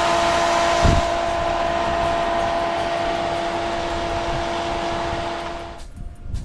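Pool equipment pad running: the circulation pump motor and the heater give a steady whoosh with a steady whine, the sound of the system working properly after the actuator repair. A thump about a second in; the sound drops away sharply near the end.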